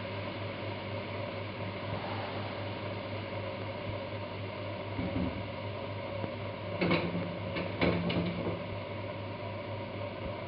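Veal shanks sizzling in a pot over high heat as the splash of white wine cooks off, over a steady low hum. Two short knocks about seven and eight seconds in.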